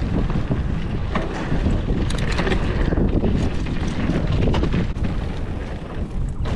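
Wind buffeting the microphone and tyres rolling over a dirt trail as a mountain bike descends, with a few sharp clicks and rattles from the bike about two seconds in.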